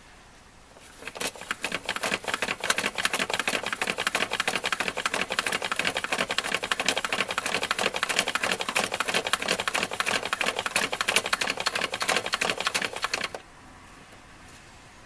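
Nintendo tabletop horse-racing toy's red crank being turned by hand: a fast, even clatter of plastic clicks while the four plastic horses advance down the track. It starts about a second in and cuts off suddenly near the end, as the race finishes.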